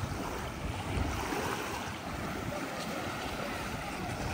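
Steady rushing noise of sea wind and small waves washing on a sandy beach, with wind buffeting the microphone.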